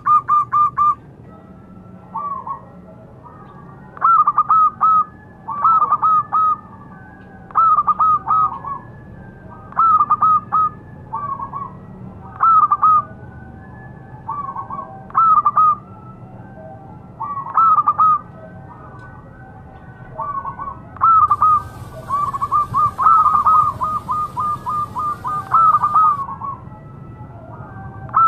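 Zebra dove (perkutut) cooing: short phrases of quick, rolling coos repeated every one to two seconds, with a longer run of rapid notes a little after two thirds of the way through.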